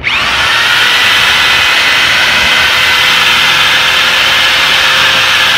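Corded drill driving a mixing paddle through Phoscrete repair mortar in a plastic pail, kicking in suddenly with a brief rising whine as it comes up to speed, then running steadily at full speed. This is the mixing stage, working the dry mix into the liquid activator until it is wetted out.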